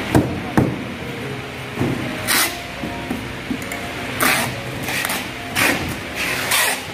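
A thick five-ply corrugated cardboard carton being handled and folded on a packing bench: two knocks within the first second, then several short rasping scrapes of cardboard, over a steady background hum.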